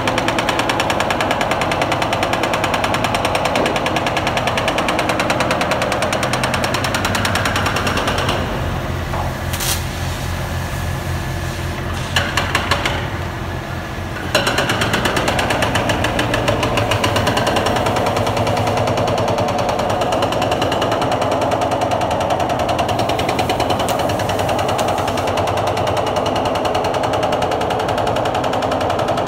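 Concrete breaker hammering rapidly and steadily while breaking up concrete. It pauses for about six seconds in the middle, with a few sharp knocks, then starts up again.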